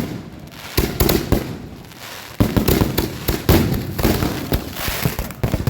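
Firework mortar rack going off out of control and blowing up: a string of sharp bangs and crackles, a few spaced ones at first, then coming almost without pause from about two and a half seconds in.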